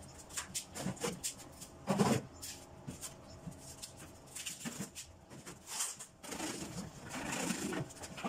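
A taped cardboard box being handled and opened with a knife: scattered taps, knocks and scrapes of cardboard and packing tape, with one louder knock about two seconds in and a longer rustling scrape near the end.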